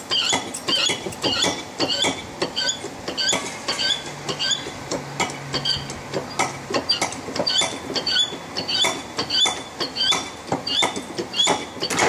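Hydraulic cable cutter being pumped to close its blade on a power cable: a rhythmic squeaky click on each pump stroke, about two a second.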